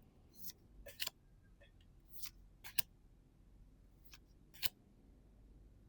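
Pokémon trading-card packs and cards being handled: a few short, faint swishes and clicks at irregular intervals, as cards are slid and flipped.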